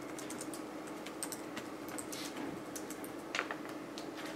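Typing on a computer keyboard: quick, irregular key clicks, over a faint steady hum.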